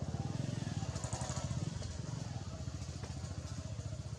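A small engine running with a fast, even putter. It grows loudest about a second in, then slowly fades.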